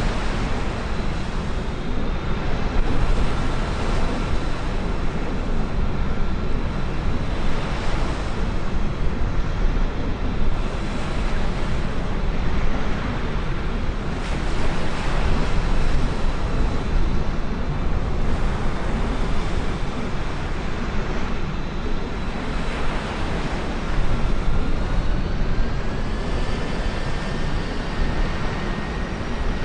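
Jet aircraft engines running with a steady, deep roar that swells and eases every few seconds, with a faint rising whine in the last few seconds.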